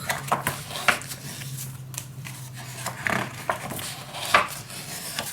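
Sheets of scrapbook design paper being cut out of a paper pad: several separate sharp snips and crackles of paper.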